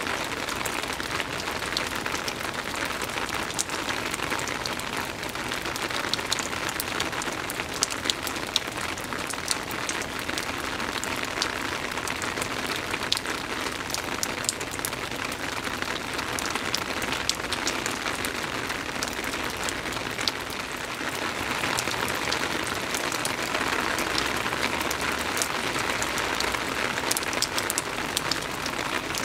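Soft, steady rain: an even hiss of rainfall with many scattered sharp drop ticks, growing a little louder about two-thirds of the way through.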